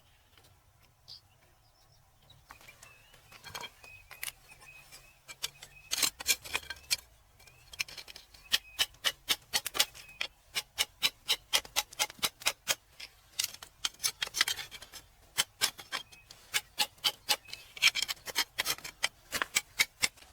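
Sharp clicking taps, like a hard tool chipping at rock, begin sparsely. From about six seconds in they come as a dense, irregular run of several taps a second.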